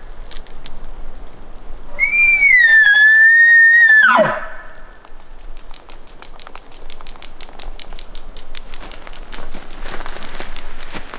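Bull elk bugling: one high whistle held for about two seconds that drops sharply at the end into a low grunt, followed by a long run of quick clicks and rustles.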